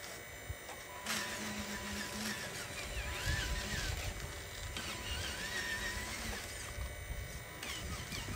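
Small electric motor and plastic gearbox of an RC dump truck whirring as the truck reverses and then drives forward.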